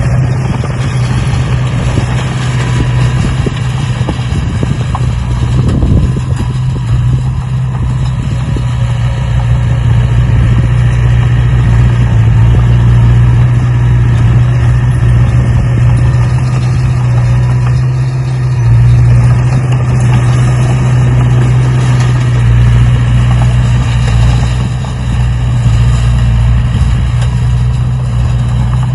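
A motor or engine running steadily with a strong low hum, loudness rising and falling only a little.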